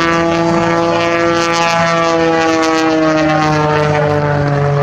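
Propeller airplane engine droning as the aircraft flies past, its pitch falling slowly and steadily.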